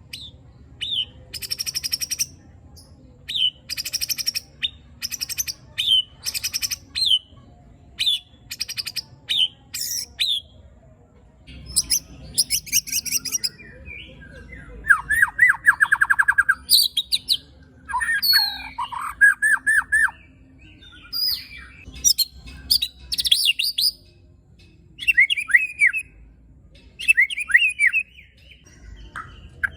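White-rumped shama giving harsh, aggressive calls, the kind keepers call tembakan and besetan. A short sharp note followed by a rasping rattle repeats about eight times. Then comes a varied run of quick falling trills and sharp notes.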